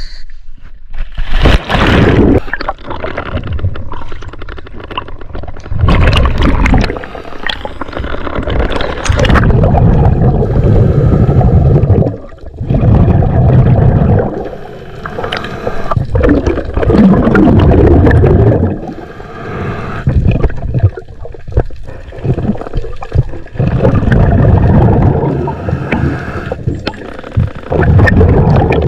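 Muffled underwater water noise as a diver goes under with the camera: a splash-like rush near the start, then gurgling water sound that swells and fades every couple of seconds.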